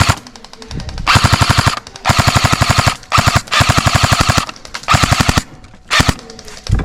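Airsoft gun firing full-auto bursts: about five or six rapid strings of shots, each up to about a second long, with short pauses between them.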